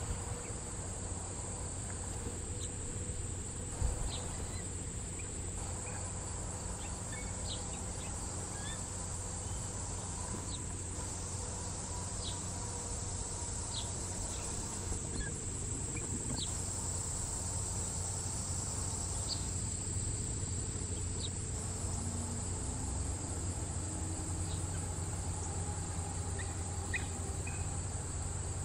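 Steady, high-pitched insect chorus of crickets or similar, with a low rumble beneath it. A few short high chirps are scattered through, and there is a single dull thump about four seconds in.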